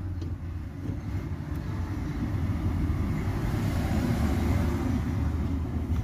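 A passing road vehicle: a steady low rumble with a hiss that builds and peaks about four seconds in.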